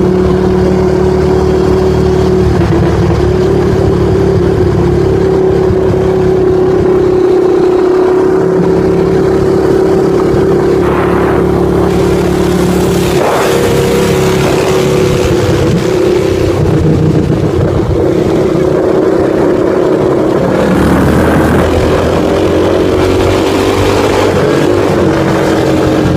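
Quad bike (ATV) engine running loud and steady at riding speed, its note shifting slightly near the end, with wind rushing over the microphone.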